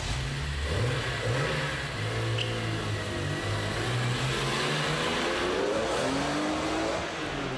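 BMW Z4 M Coupe's 3.2-litre S54 straight-six, the E46 M3 engine, running and revving as the car pulls away, its note rising about two-thirds of the way through and falling again.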